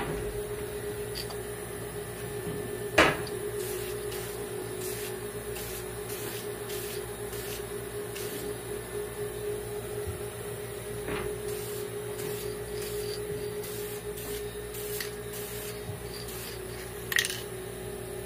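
A steady mechanical hum at one pitch, broken by a few sharp knocks and clicks: one at the start, a louder one about three seconds in, and another near the end.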